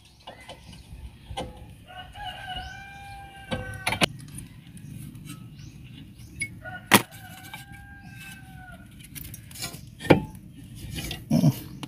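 A rooster crowing twice, each crow long and held. Sharp metal clinks from a rusty brake caliper and Allen wrench being handled come in between, the loudest in the middle.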